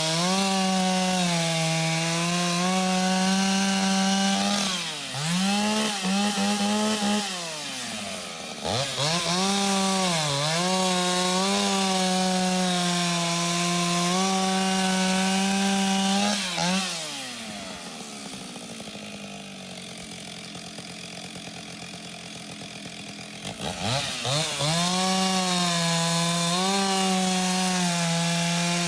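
Antique Stihl two-stroke chainsaw running at high revs and cutting wood, its pitch dipping several times as the chain bogs under load and recovering. For several seconds past the middle it falls back to a quieter idle, then revs up again.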